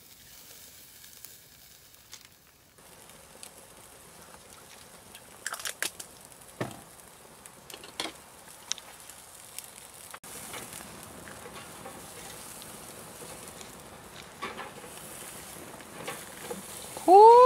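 Pork back ribs sizzling and crackling over glowing charcoal on a wire grill, a low, steady hiss with scattered sharp clicks. Near the end a short, loud rising tone cuts in.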